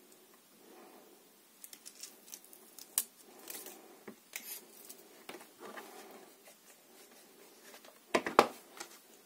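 Quiet scattered clicks and scrapes of a craft knife trimming a printed label sticker and the sticker being rubbed down onto a multimeter's plastic case, then a quick pair of sharp knocks near the end.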